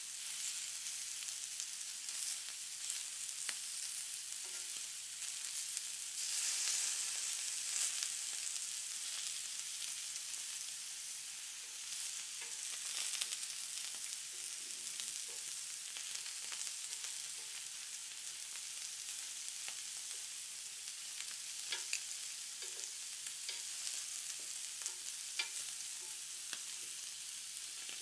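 Meat sizzling on a hot indoor grill pan, a steady hiss with scattered small pops, swelling briefly about six seconds in.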